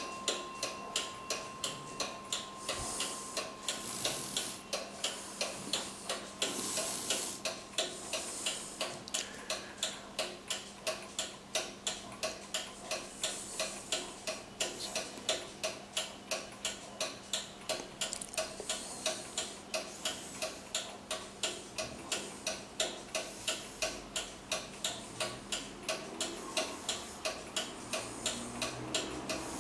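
18th-century Jaquet-Droz 'Zappler' table clock, its short pendulum swinging in front of the dial, ticking in a quick, even beat of about three ticks a second.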